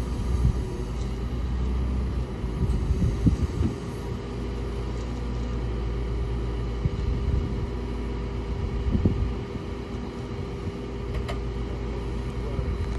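JCB telehandler's diesel engine running steadily while it holds a Land Rover Defender over a trailer.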